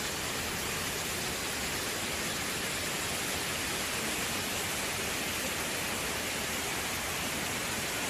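Steady rush of water from a cascading waterfall stream, an even hiss with no break.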